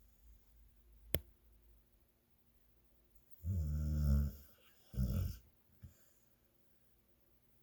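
Snoring in deep sleep: a short click about a second in, then one long snore and a shorter one a second later.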